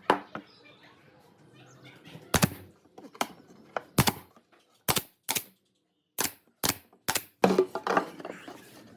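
Irregular sharp knocks and clicks from hands-on woodworking: about ten separate strikes, some in quick pairs, with quieter handling noise between them.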